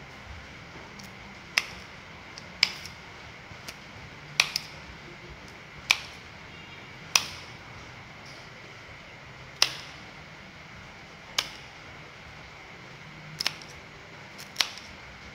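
Kitchen scissors snipping through pieces of dried snakehead fish, a short sharp click with each cut, some nine cuts at uneven gaps of a second or two.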